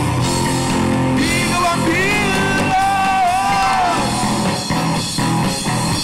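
Live rock band playing: a male singer holds long, wavering notes over electric guitar and drum kit, then the voice drops out about four seconds in and the band carries on with steady drum hits.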